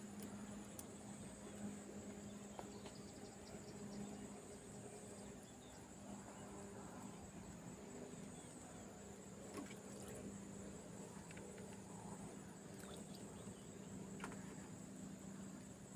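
Faint, steady high-pitched insect chorus shrilling without a break, over a low steady hum, with a few faint clicks.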